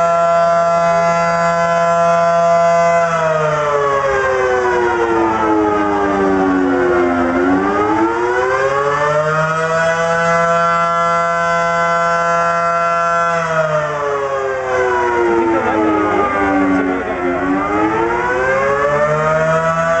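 Air-raid siren wailing: its pitch holds high, slides down to a low point about seven seconds in, climbs back and holds, then falls again and rises once more near the end.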